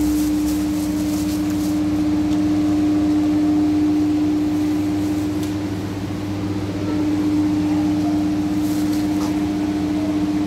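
Steady electric hum of an air cooler's fan motor, with one strong held tone over a lower drone. A few faint crinkles of a plastic carrier bag come about a second in and again near the end.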